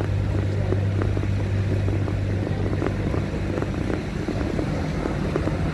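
Steady low hum of an idling vehicle engine, with faint scattered ticks of footsteps on paving.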